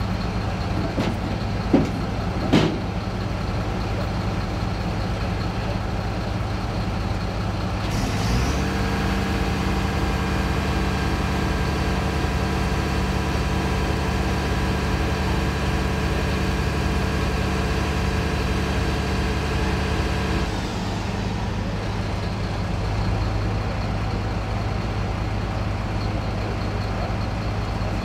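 A heavy vehicle's engine running steadily. About 8 seconds in it steps up to higher revs, holds there, and drops back to idle about 20 seconds in. Two sharp knocks are heard about two seconds in.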